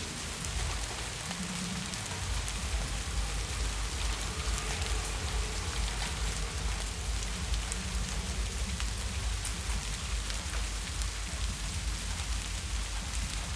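Heavy rain falling steadily, with many individual drops ticking through the hiss, over a deep low rumble that sets in about two seconds in.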